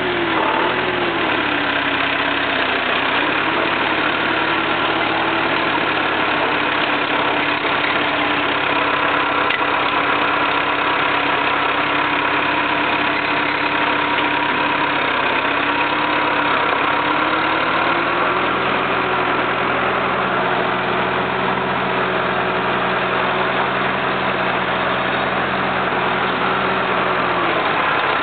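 Jacobsen mower's four-cylinder Perkins diesel engine running steadily. Its pitch drops a little in the first few seconds, rises slightly about two-thirds of the way through, and falls again at the end.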